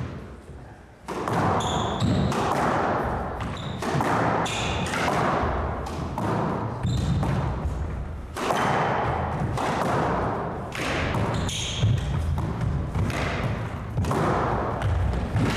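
Squash rally: the ball cracking off racquets and the court walls in quick, irregular succession, with shoes squeaking on the hardwood floor. The hits start about a second in.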